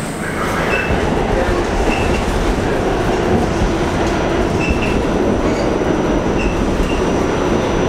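R46 subway car running on the track, heard from inside the car: a steady rumble of wheels and motors with a few short high squeaks, and a thin high whine from about halfway through.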